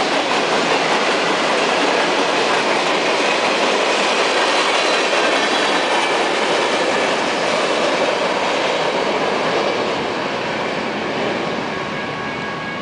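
BNSF freight train's tank cars and open hopper cars rolling past, a steady noise of steel wheels on rail that fades over the last few seconds.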